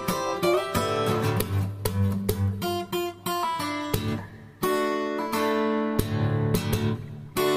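Background music: acoustic guitar strumming and picking chords in a steady rhythm.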